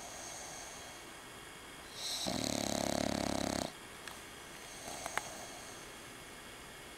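Bulldog snoring: one loud snore about two seconds in, lasting about a second and a half, with softer snoring breaths before and after.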